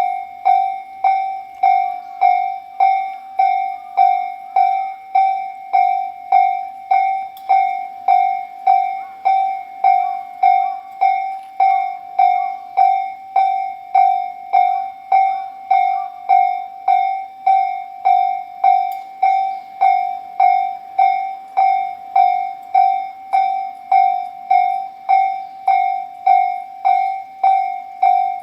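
Japanese railroad crossing warning bell ringing its slow, even 'kan-kan', about one and a half strikes a second, each strike ringing on into the next.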